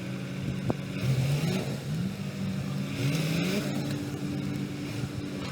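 Heavy diesel engine of earthmoving machinery running steadily, revving up under load about a second in and again about three seconds in.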